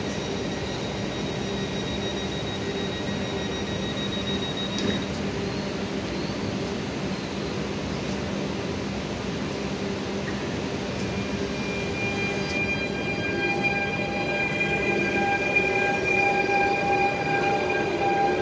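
Stadler Flirt3 electric multiple unit (PKP Intercity ED160) departing. It first stands with a steady hum. About eleven seconds in, a set of whining tones comes in and grows louder as the train pulls away.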